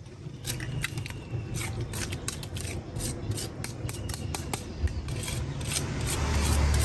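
A metal spoon scraping and tapping inside a perforated stainless-steel colander as soft pulp is knocked out of it into a metal wok. It makes a quick, irregular run of scrapes and clicks.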